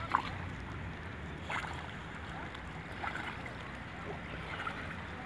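A Staffordshire bull terrier swimming: soft splashing and lapping of water as it paddles, over a low steady rumble. There is one sharp knock right at the start.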